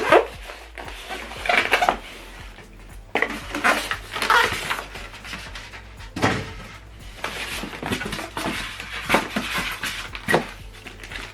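Packaging and plastic parts being handled: irregular rustling and knocking in bursts, over a low steady hum.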